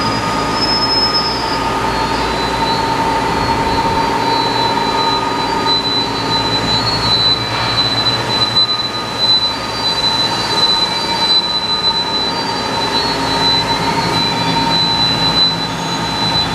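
DMG Mori DMU-210P 5-axis machining center running while it machines a part: a steady mechanical hum with high-pitched whines held over it.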